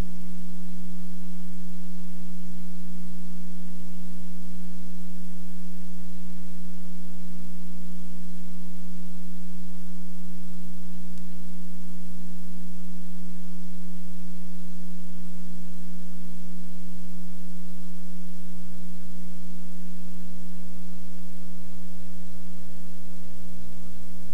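Loud, steady low electrical hum that never changes: mains hum on the audio track of a blank stretch of videotape.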